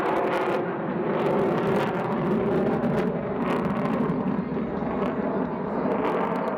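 Jet noise from an F-22 Raptor's twin Pratt & Whitney F119 turbofan engines as the fighter manoeuvres overhead: a loud, steady rumble with a few brief crackles.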